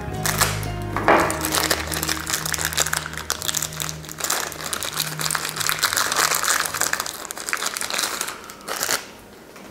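Plastic bag crinkling and crackling as hands open a bag of linear bearings, dense and continuous for about nine seconds, then stopping near the end.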